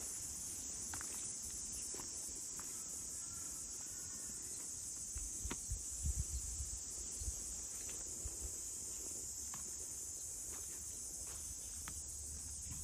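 A steady, high-pitched chorus of insects buzzing without a break. A few low thumps about halfway through.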